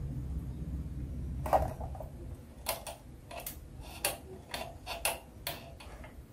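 Light, irregular clicks and taps from handling a plastic impulse sealer: about ten small knocks over a few seconds, after a low rumble that fades about a second and a half in.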